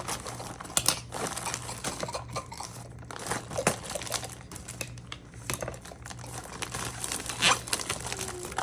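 Plastic packaging crinkling and rustling as items are unwrapped and handled by hand, in irregular crackles, over a low steady hum.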